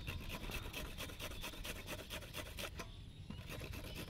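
Green mango being grated on a handheld stainless-steel box grater: a quick run of rasping strokes, with a short pause about three seconds in.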